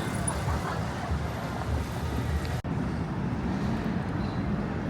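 Steady city street traffic noise, a continuous low rumble of passing vehicles, briefly cutting out about two and a half seconds in.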